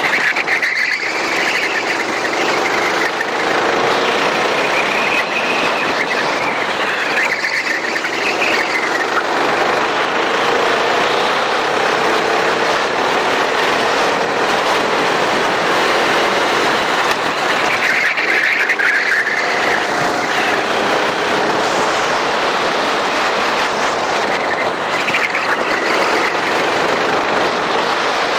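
Racing go-kart engine running hard at race speed, its pitch gliding up and down, under a dense rushing noise. Short high tyre squeals come several times, most strongly about 18 to 19 seconds in.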